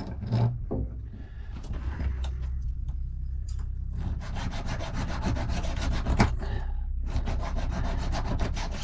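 Fast, rhythmic metal-on-metal scraping, about eight strokes a second, as a steel safe key is worked to fit. It starts about four seconds in and pauses briefly near the end, over a low steady hum.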